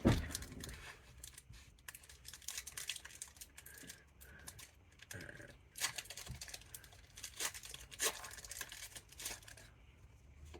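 Foil wrapper of a Pokémon TCG Fusion Strike booster pack being torn open and crinkled, with irregular sharp crackles.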